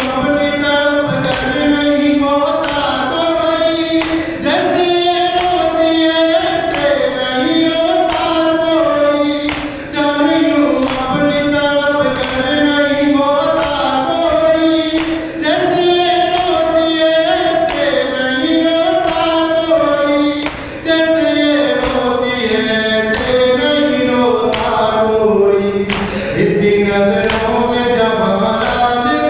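Voices singing a noha, a Urdu lament, in chorus, over a steady beat of sharp slaps.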